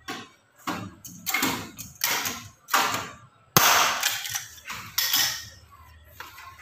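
About eight sharp metallic knocks and clacks at irregular intervals, the loudest about three and a half seconds in, as a chrome door fitting is handled and set against an aluminium sliding-door frame.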